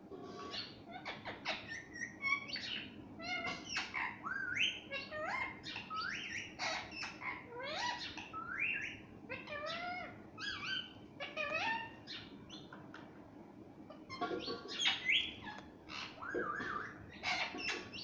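Rose-ringed parakeet calling: a rapid string of chirps, short harsh squawks and rising whistled notes, with a brief lull about two thirds of the way through.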